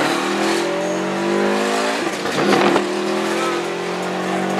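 A car engine accelerating hard, its pitch climbing steadily. About two seconds in there is a gear change: the pitch drops suddenly with a short hiss, then climbs again.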